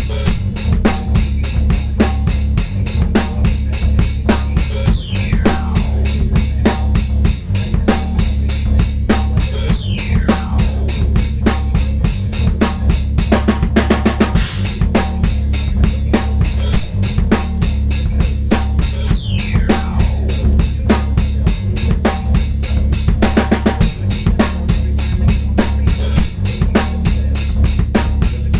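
Drum kit played in a quick, steady groove of bass drum, snare and rimshots over a backing sample with a sustained low bass line. Three falling sweeps come from the sample, and the drums break into a fast roll about halfway through and again later on.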